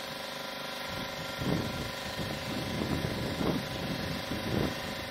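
Wind buffeting an outdoor microphone in three gusts, about a second and a half, three and a half, and four and a half seconds in, over a steady hiss and hum that holds several fixed tones.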